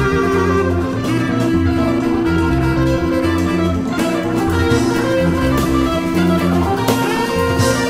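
Jazz fusion ensemble playing: guitar to the fore, over a walking double-bass line and hand percussion, with held melodic notes above.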